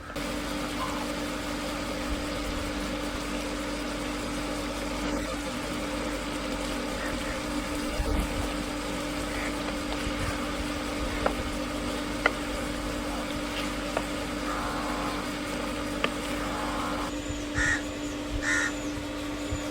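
Steady low hum under faint outdoor background noise, with a few sharp ticks and two short calls near the end.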